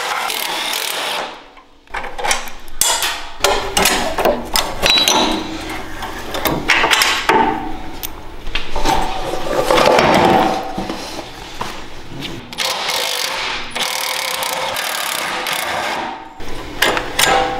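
Cordless impact tools running in short spurts as they back out the bolts of a mini off-road go-kart's swing arm and shock mounts, with knocks and clinks of the metal parts.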